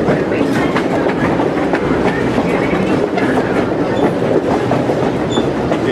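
Passenger train running along the track, heard from on board: a steady rumble of the cars with scattered clicks and clacks from the wheels on the rails.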